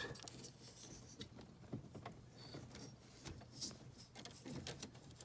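Faint, scattered clicks and light rustling of the four-way flasher unit being worked out of its holder and unplugged from its wiring connector under the dashboard.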